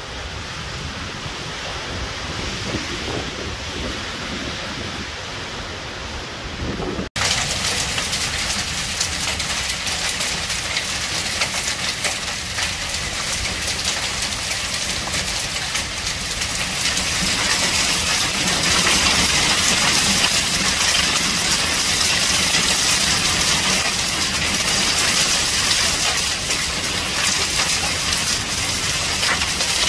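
Gusty storm wind buffeting the microphone. After a sudden cut about seven seconds in, heavy rain mixed with small hail pelts concrete in a dense, steady hiss that grows louder partway through.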